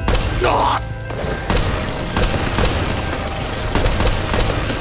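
Anime gunfight sound effects: rapid gunshots and booms in quick succession over a low rumble, with music underneath.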